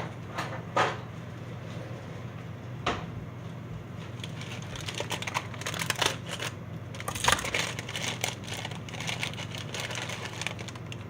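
Small crunchy chocolate cereal hoops (Choco Crisps) being handled and crunched: a few sharp clicks, then a dense run of quick crisp clicks and rustles from about four and a half seconds in until near the end.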